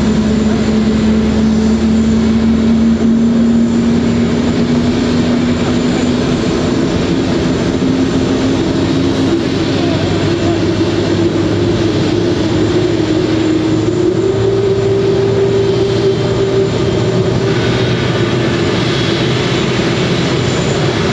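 Airbus A380's Engine Alliance GP7200 turbofan starting up: a loud, steady rush with a whine that climbs slowly in pitch as the engine spools up, stepping higher about two-thirds of the way through. A higher hiss joins near the end.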